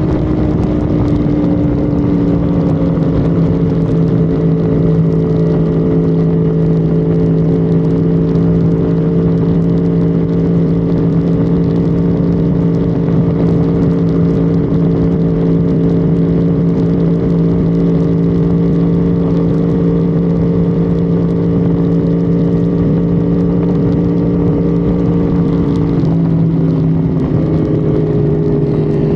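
Honda Civic FD engine running steadily at high cruising revs, heard onboard over road and wind noise. The engine note changes near the end.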